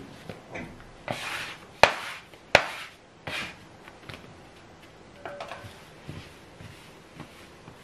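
Bread dough being kneaded by hand on a wooden table: short scraping, rubbing strokes as the dough is pushed and smeared across the wood, with two sharp knocks in quick succession about two seconds in.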